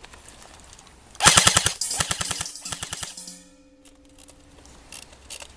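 Airsoft electric rifle firing a rapid full-auto burst, about a dozen shots a second for roughly two seconds, thinning out at the end, with a faint ringing tail after it.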